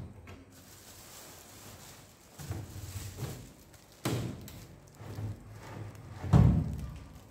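Several dull thumps with a short echo, four in all, the loudest about six seconds in, over a faint steady hiss.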